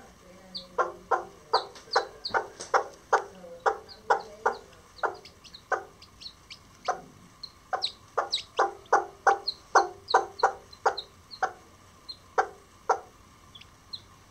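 Self blue Old English Game bantam hen clucking in short, sharp clucks, about two a second, with a break of about a second midway and fewer clucks near the end: a mother hen's food call to her chicks. Faint high peeps from the chicks come between the clucks.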